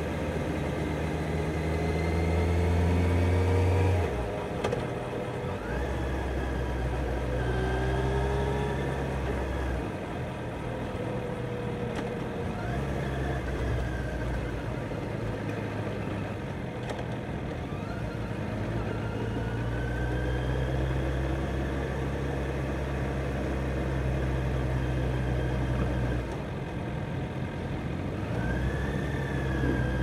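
Kawasaki Z900's inline-four engine heard from the rider's seat, its pitch climbing and dropping in steps as the bike accelerates, eases off and changes gear, over a steady rush of riding noise.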